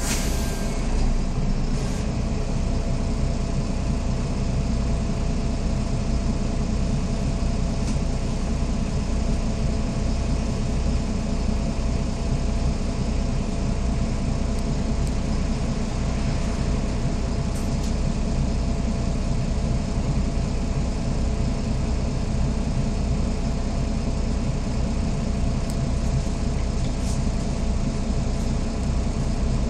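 SOR NB12 city bus running, heard from inside the passenger cabin as a steady engine and drivetrain drone with a constant hum. There is a brief click right at the start.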